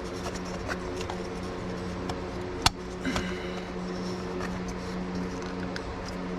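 Plastic oil filler cap being fitted back onto the engine, with a sharp click about two and a half seconds in and a few faint knocks just after, over a steady low hum.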